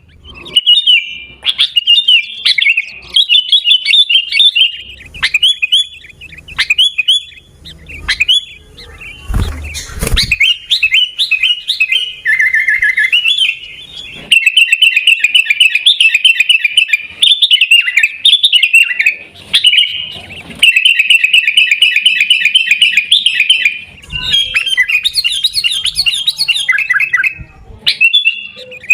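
Sooty-headed bulbul singing: fast runs of short chirps repeated in phrases, with brief pauses between them. A short low rumble about nine to ten seconds in.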